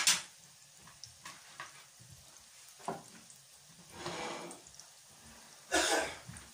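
A few short, scattered kitchen handling noises: rustles, light knocks and clatter from work at the counter. The loudest come at the very start and about six seconds in.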